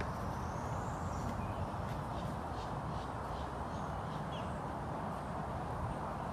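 A few short, high bird calls, a run of them between about two and four seconds in, over a steady outdoor background hiss.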